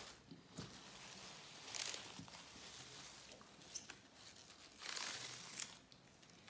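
Rustling and crinkling of a bunch of green onions as gloved hands pull the stalks apart and lay them on a wooden cutting board, in uneven bursts with a few light clicks and the louder rustles about two seconds in and again near five seconds.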